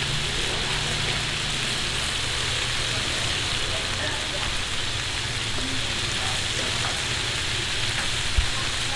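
Shui jian bao (pan-fried buns) frying in a large flat iron pan, a steady sizzle of oil and water under the buns, with a single sharp knock near the end.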